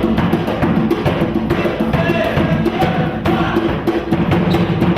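Afro-Brazilian percussion ensemble drumming: dense, quick drum strokes over a steady low drum pulse.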